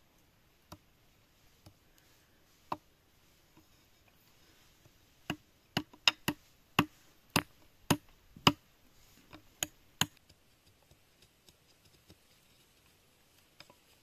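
Large knife blade chopping into a thin green bamboo stick laid on a bamboo log: a run of about ten sharp knocks, roughly two a second, in the middle, with a few single strikes before it and faint ticks after.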